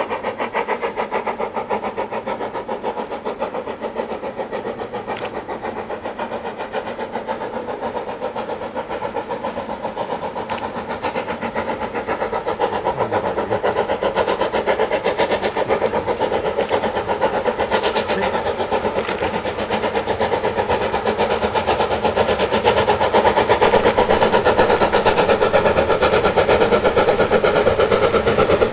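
Somerset & Dorset 7F 2-8-0 steam locomotive No. 53809 working a passenger train, its exhaust beating in a fast, steady rhythm. It grows louder as the engine approaches.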